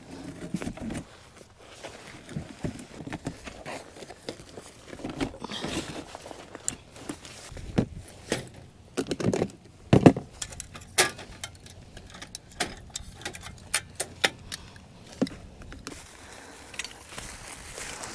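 Camping gear being handled while a tent is taken down: scattered light metallic clinks, clicks and knocks with rustling in between, the sharpest knock about ten seconds in.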